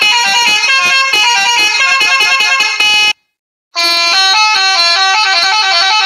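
Recorded Indonesian bus 'telolet' musical horn, several horn tones stepping through a short tune, played back from a phone app. Two clips: one lasting about three seconds, then after a short gap a second, different tune.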